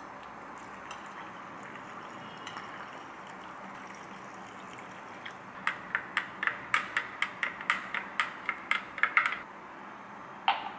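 Liquid pouring softly into a glass measuring cup, then a long spoon clinking against the glass as a chocolate drink is stirred briskly, about four clinks a second for some four seconds. One more clink near the end as a drinking glass is set down on the counter.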